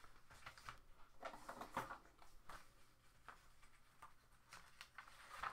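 Faint, irregular rustling and light crinkling of a paper leaflet and clear plastic packaging being handled, with a few small clicks.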